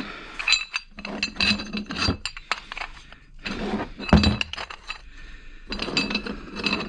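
Small metal hardware (bolts and T-nuts) clinking together as it is handled and counted by hand: irregular clusters of sharp metallic clicks with a brief ring.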